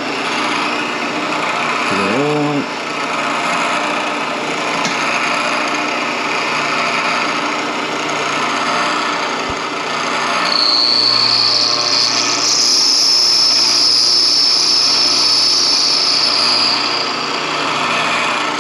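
Milling machine with its end mill cutting the back-cut angle into the dog faces of a motorcycle transmission gear: a steady grinding cut over the spindle motor's hum. A short rising and falling whine comes about two seconds in. From about halfway through, a loud high-pitched squeal from the cut rides over it for several seconds before easing off.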